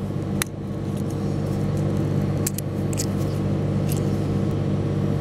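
Steady low hum throughout, with a few small sharp clicks as a Harting extraction tool is pushed into a connector insert to release and pull out a crimped pin contact.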